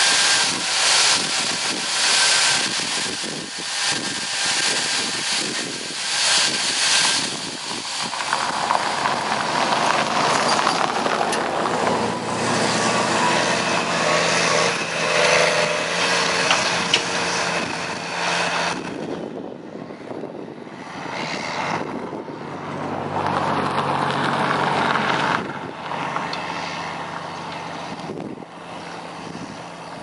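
A rushing hiss for the first several seconds, then a large farm tractor's diesel engine running as it pulls a grain cart away, its drone swelling and fading.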